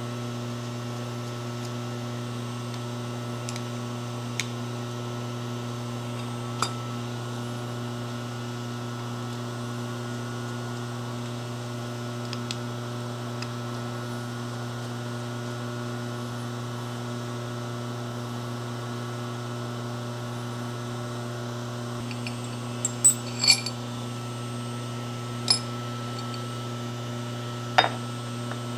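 Steady electrical mains hum, with a few light metallic clinks of small steel parts being handled: a couple early on and a small cluster near the end.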